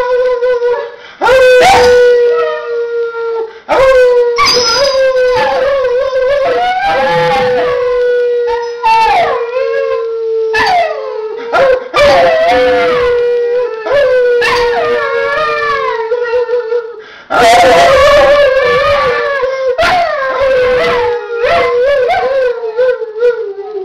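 A dog howling, with repeated rising-and-falling howls and yips, while a person howls along in long, nearly steady notes that break off every few seconds for breath.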